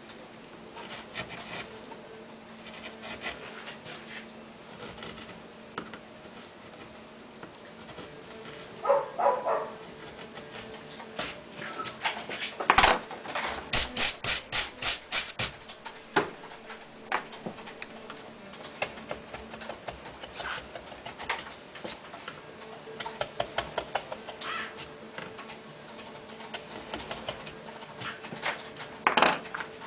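Stiff bristle brush sweeping wood chips off a freshly carved wooden relief: a run of quick brushing strokes in the middle, with scattered scrapes and rubs of hand and tool on the wood before and after. A short pitched sound comes about nine seconds in.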